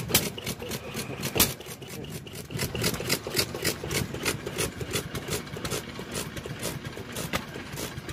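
Old Sekiya BEST single-cylinder stationary oil engine running slowly on gasoline, with a quick, steady mechanical clatter of clicks and one louder bang about a second and a half in.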